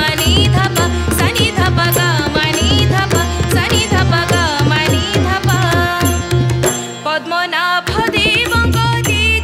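Odissi classical song: a woman's voice sings an ornamented, gliding melody over a harmonium, with rhythmic mardala drum strokes and manjira hand cymbals. The drum drops out for about a second near the end, then comes back in.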